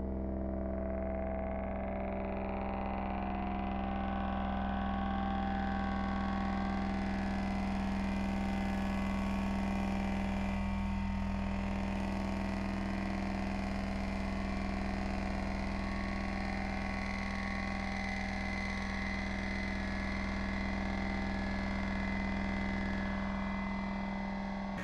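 Ambient electronic drone from generative music: sustained, steady low synthesizer tones with deep bass, the sound gradually brightening over the first several seconds and then holding.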